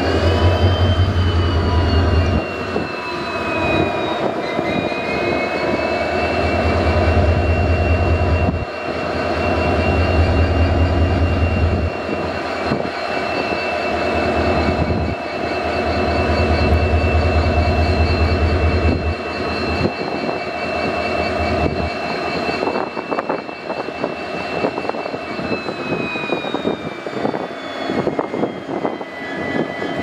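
WDP4D locomotive's EMD 16-710 two-stroke V16 diesel engine running after its startup: a steady engine sound with a high whine that dips in pitch about four seconds in and again near the end. Under it a low throb comes and goes in spells of a few seconds.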